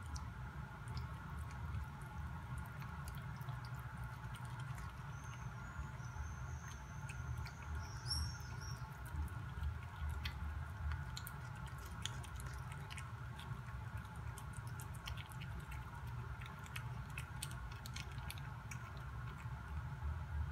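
A cat chewing pieces of shrimp: scattered small clicks over a steady low hum.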